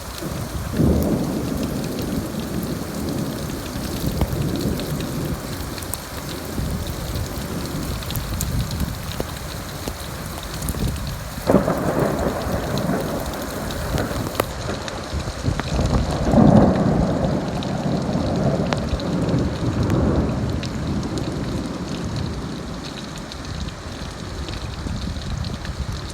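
Thunder rolling over steady rain: a low rumble about a second in, a sharp crack near the middle that breaks into a long rumble, and another loud rumble a few seconds after it.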